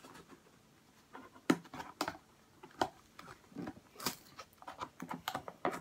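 Someone handling and trying to prise open a stiff product box: scattered clicks, taps and rustles of packaging being worked at, the box too stiff to open.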